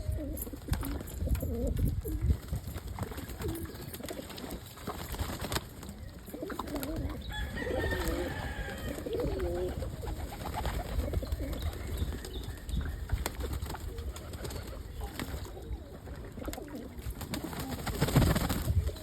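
Domestic pigeons cooing in the loft, several wavering coos overlapping, clearest in the middle, with a few scattered sharp knocks among them.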